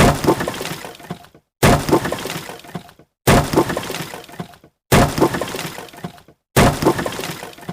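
Wood crashing and breaking: a sharp crack followed by a scatter of smaller wooden knocks that die away within about a second. The same effect repeats five times, about every 1.6 s, with a moment of dead silence between repeats.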